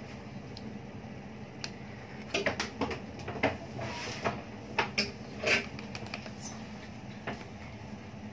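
Baking powder being shaken and tapped out of an open metal tin into a bowl of flour: a run of short, sharp taps and clicks, loudest near the end of the run, over a steady low hum.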